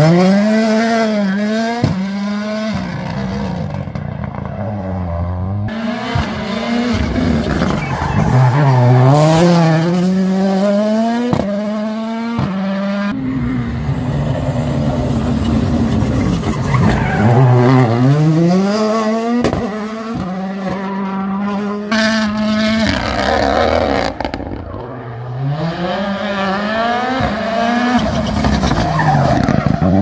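Ford Puma Hybrid Rally1 WRC cars' 1.6-litre turbocharged four-cylinder engines accelerating hard out of hairpins, pitch climbing and dropping back at each gear change, over and over across several passes cut together. There are a few sharp pops among the shifts.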